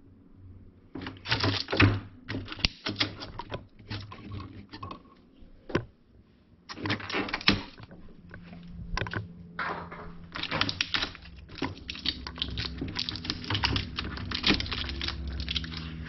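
Blue shipping tape and a packing strip being peeled off the plastic lid and rim of a new chest freezer: irregular crackling clusters of quick clicks in several bouts, almost continuous in the second half.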